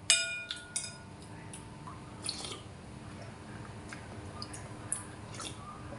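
A metal spoon clinks against a ceramic soup bowl, ringing briefly, with a second lighter clink just after. Then come faint small clicks and liquid sounds of the spoon dipping into the soup and sips being taken.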